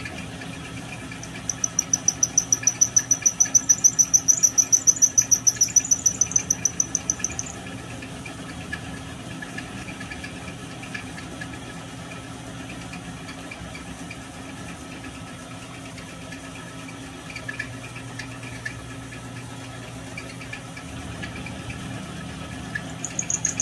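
Small milling machine running with a steady motor and spindle hum while an end mill cuts an aluminium crankcase block. About a second and a half in, a high-pitched squeal starts, pulsing rapidly at roughly seven times a second, and stops after about six seconds; it starts again near the end.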